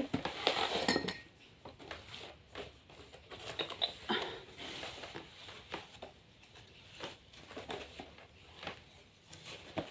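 Cardboard packaging being handled: boxes shifted and a boxed set of cups and saucers slid out of its cardboard sleeve, making scattered scrapes, taps and rustles, loudest in the first second.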